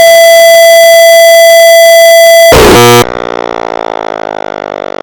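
A loud, steady pitched tone held for about two and a half seconds and cut off abruptly. Then a Sterling Model 30 Sirenlite fire truck siren winding down, its pitch slowly falling.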